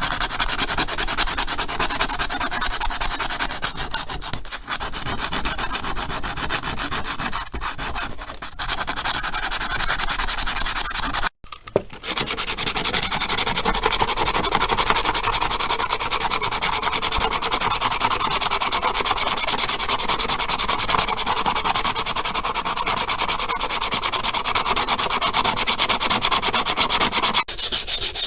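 Sanding: an abrasive rubbing steadily on a surface, with a brief break about eleven seconds in.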